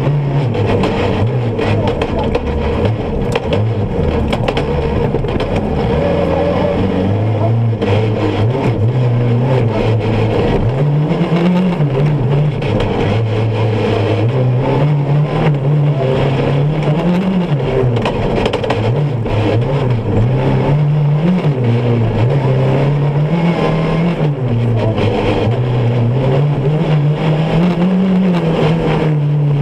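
Off-road rally buggy's engine heard from inside the cockpit, its revs climbing and dropping every few seconds as it accelerates and slows along a dirt track.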